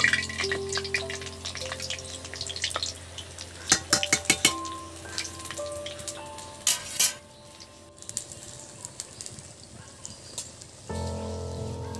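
Batter-coated pointed gourd (potol) pakoras deep-frying in hot oil in a karahi, sizzling steadily. A wire skimmer clinks against the metal pan several times about four seconds in and again near seven seconds.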